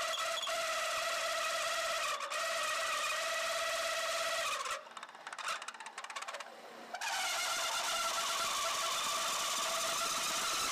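Metal-on-metal friction welding on a Holbrook B13 lathe: the spinning workpiece pressed against the stationary pipe gives a loud, steady, high-pitched squeal made of several held pitches. The sound drops away for about two seconds midway, then comes back unchanged.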